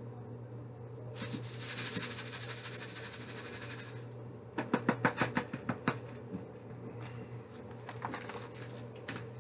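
Dry Rice-A-Roni rice-and-vermicelli mix poured from its box into a sauté pan of hot olive oil: a steady hiss for about three seconds, then a quick run of sharp taps and clicks, with a few lighter clicks near the end.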